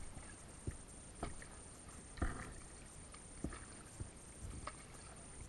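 Paddling an Itiwit x500 inflatable kayak: short splashes and knocks of the paddle blades dipping into the water, about seven strokes at a steady paddling rhythm, over a faint steady wash of water.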